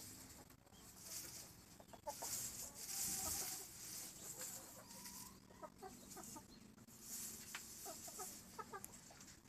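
A hen clucking in short, scattered notes while it forages in dry rice straw, with the straw rustling in bursts of hiss.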